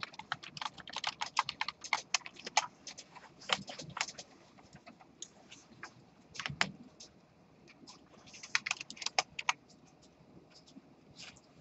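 Typing on a computer keyboard: quick runs of keystroke clicks, densest at first, then shorter clusters separated by pauses, with only a few scattered clicks near the end.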